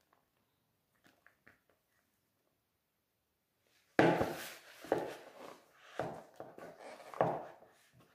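Hand squeezing and working crumbly tapioca-starch (polvilho) dough in a plastic bowl: rough squishing and scraping strokes roughly once a second, starting suddenly about four seconds in.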